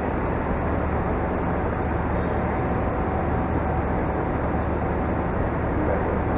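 Steady low rumble and hum of a standing train's diesel engines running, even throughout with no distinct events.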